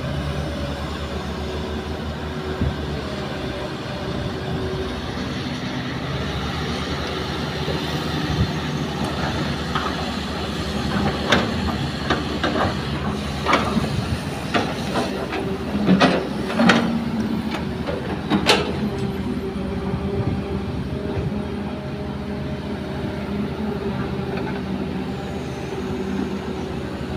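Kobelco hydraulic excavator's diesel engine running steadily while it digs, with a run of sharp knocks and scrapes in the middle as the bucket bites into the earth of the pit.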